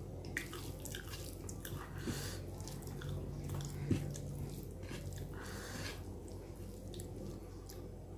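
Close-miked eating sounds: wet chewing and mouth clicks over a mouthful of rajma curry and rice, with a sharper click about four seconds in, all over a low steady hum.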